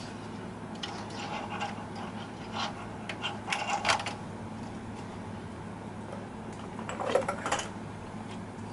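Light clicks and rattles of a plastic cast-on comb being hung on the metal needles of a Silver Reed SK160 mid-gauge knitting machine. They come in a few short clusters, the biggest about three to four seconds in and about seven seconds in, over a steady low hum.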